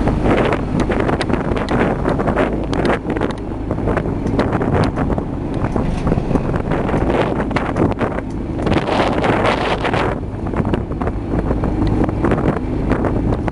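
Wind buffeting the microphone in gusts, over a steady low rumble.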